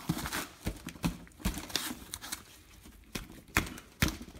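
Outer rear brake pad's stiff spring clips being pressed onto the caliper: a series of irregular sharp metal clicks and knocks, with the rustle of gloved hands handling the parts.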